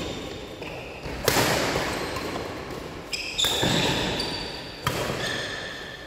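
Badminton rackets striking a shuttlecock in a rally, four sharp hits about a second and a half apart, each echoing in a large hall.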